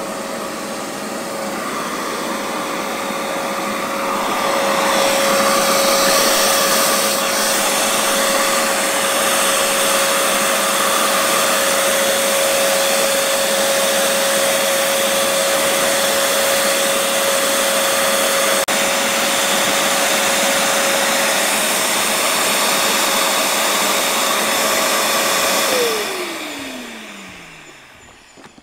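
Shop vacuum running with a steady whine, sucking up metal drill shavings from a van's sheet-metal roof. About 26 seconds in it is switched off and the motor winds down, its whine falling in pitch and fading.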